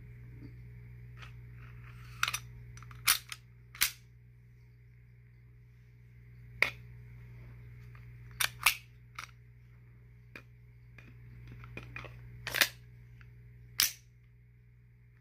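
Sharp metallic clicks and snaps of a semi-automatic pistol's slide being fitted onto the frame and worked, about a dozen at uneven intervals, some in quick pairs, over a steady low hum.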